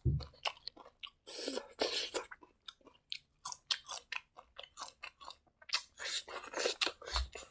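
A person chewing a mouthful of rice and fresh leafy greens, with irregular wet smacks and crunches.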